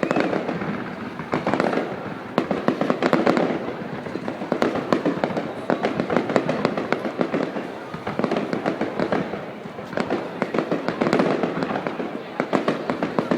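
Fireworks display: a dense, rapid crackle of many small bursts that swells and eases every second or two.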